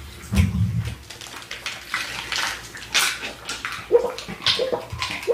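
Close-miked chewing and wet mouth sounds of someone eating: a string of sharp lip smacks and clicks, with a low thump about half a second in.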